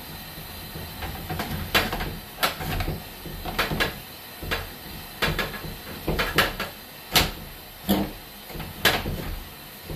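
Irregular knocks and clunks, about fifteen in all, the loudest about seven seconds in, as a sewer inspection camera and its push cable are worked back and forth in a drain pipe.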